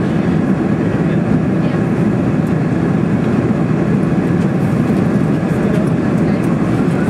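Steady engine and airflow noise heard inside the passenger cabin of a Boeing 747-400 in flight, a loud, even, low drone.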